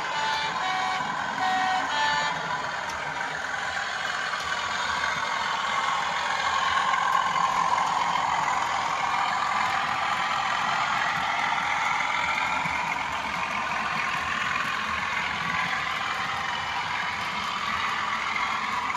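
Hornby TTS sound decoder playing a Class 37 diesel engine sound through a small speaker in a running model locomotive. A few short tones sound in the first two seconds, then the engine note swells and eases back.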